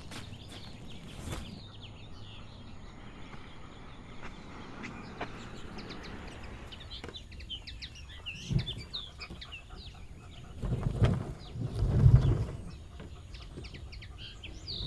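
Small birds chirping repeatedly in short high calls. Over them, a few low thuds and rumbles come about two-thirds of the way through, and these are the loudest sounds.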